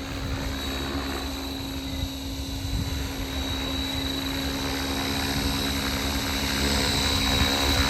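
Align T-Rex 550L Dominator electric RC helicopter in flight, its Rotor Tech 530 main and tail blades giving a steady rotor hum over a high motor whine. It grows somewhat louder near the end.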